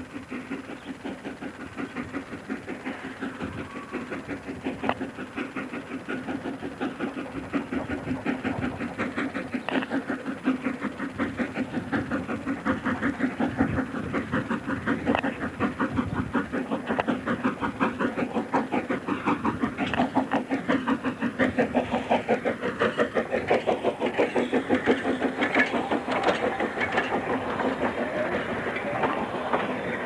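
Kerr Stuart steam tank locomotive No 4185 chuffing as it approaches and passes, its exhaust beats coming in a rapid, even rhythm that grows steadily louder.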